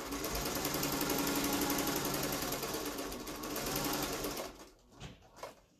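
Sewing machine running steadily, stitching a seam at the base of a tote bag, then stopping about four and a half seconds in, followed by a few light clicks.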